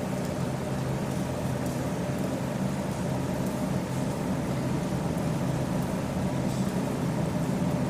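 A steady low hum of background noise, unchanging throughout, with no distinct events.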